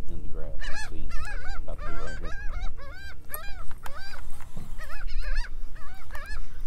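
A flock of birds calling over a school of feeding redfish: many short, arched, repeated calls overlapping one another. Birds working like this mark fish feeding on shrimp below.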